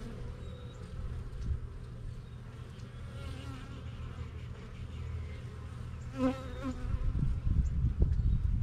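Honeybee colony buzzing steadily from an opened hive, with one louder buzz passing briefly about six seconds in. Low rumbling grows louder near the end.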